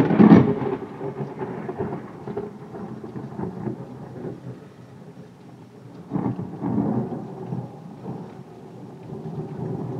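Thunder: a sudden loud crack at the start that rumbles away over a couple of seconds, then a second rumble of thunder about six seconds in, over steady rain.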